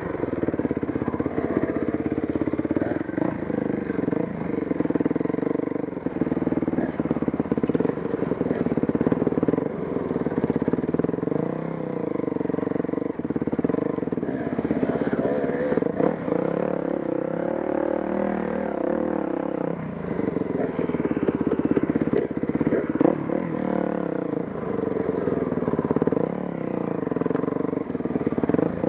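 Dirt bike engine running under way, its pitch rising and falling as the throttle is opened and closed over rough trail, with a few knocks from the bike jolting over rocks and roots.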